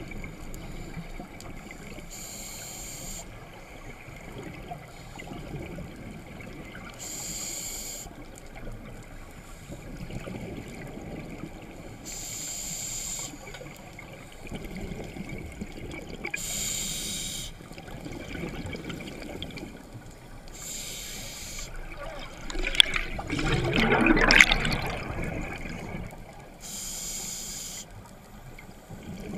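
Scuba diver breathing through a regulator underwater. Six hisses as the demand valve opens on each inhalation, about every four to five seconds, with bubbling rumble between them as each breath is exhaled. A louder rush of bubbles lasts a couple of seconds about three-quarters of the way through.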